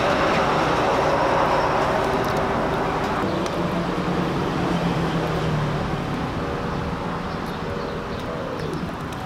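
Street traffic noise, a vehicle passing that is loudest early on and slowly fades away.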